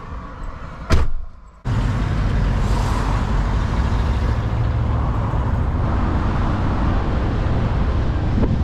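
A single sharp thump about a second in, then, after a brief hush, the steady low rumble of a pickup truck driving in traffic: engine and road noise.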